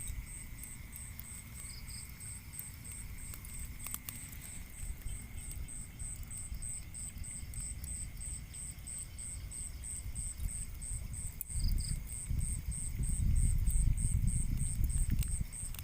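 An insect chirping in a steady, even rhythm of about three to four high-pitched pulses a second, over a steady thin high whine. Low rumbling noise on the microphone swells about twelve seconds in and runs to near the end.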